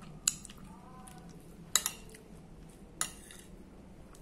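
Metal fork clinking and tapping against a dinner plate: four sharp clicks, two of them close together in the middle.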